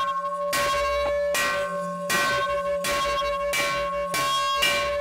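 Village bell struck over and over, about one and a half times a second, each strike ringing on into the next. This is the second of three rounds rung to call the villagers to gather.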